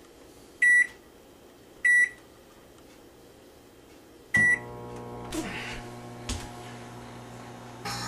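Microwave oven keypad beeping twice, then a third beep about four seconds in as the oven starts, followed by its steady running hum. Near the end a sharp crack and a crackling hiss begin as the light bulb inside the oven lights up.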